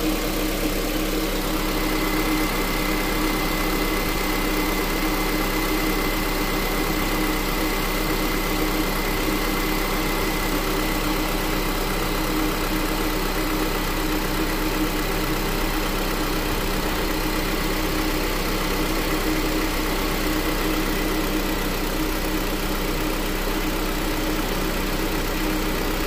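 2007 Honda Accord's 2.4-litre four-cylinder engine idling with the AC on and the electric radiator fans running as they are supposed to, a steady hum with a faint constant high whine.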